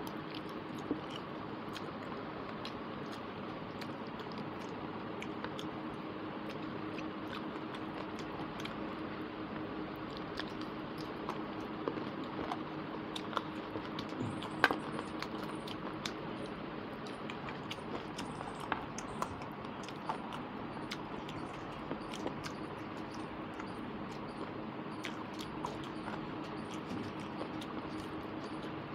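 Close-miked eating by hand: wet chewing of rice and chicken curry with many small mouth clicks and light ticks, the sharpest about halfway through, over a steady low hum.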